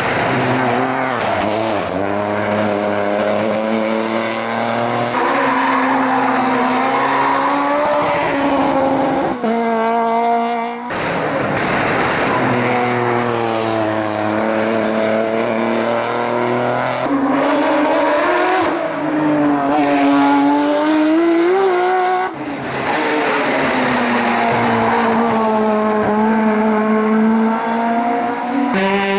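Hillclimb race car engines at full throttle, pitch climbing and then dropping sharply at each gear change, over several passes cut together with sudden breaks.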